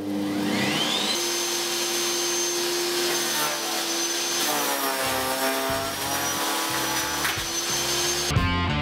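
Vitals electric garden branch shredder's brushed motor spinning up with a rising whine over about the first second, as its soft start brings it to speed, then running steadily with no load, a steady high whine over a hum. Near the end a louder, rougher burst of sound cuts in.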